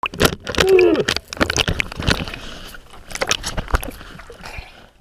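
Water splashing and slapping around the camera at the sea surface, with a short cry about a second in that rises and falls in pitch: the spearfisherman yelling as the speared fish bites him.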